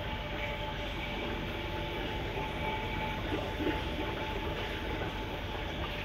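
Steady rumbling background noise with a few faint high steady tones running through it, the ambient hum of the shop's aquarium section.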